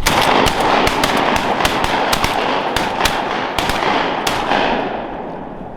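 Volley of shotgun fire from several duck hunters shooting at once at incoming ducks: more than a dozen sharp blasts in quick, overlapping succession over about four and a half seconds, with the echo rolling on and dying away near the end.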